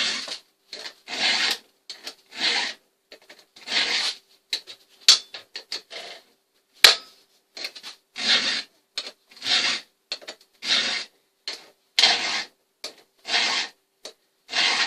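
A file sharpening the cutting teeth of a chainsaw chain: about a dozen rasping strokes, roughly one a second, with a short pause and a sharp click about halfway through.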